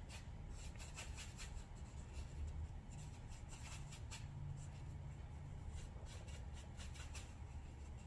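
Faint scratching and dabbing of a thin paintbrush working brown paint on a palette tray, in short irregular strokes.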